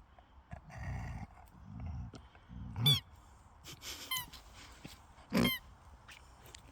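Dog working a squeaky toy in its mouth: the squeaker squeals three times, loudest about three seconds in, with low rumbling sounds between the squeaks.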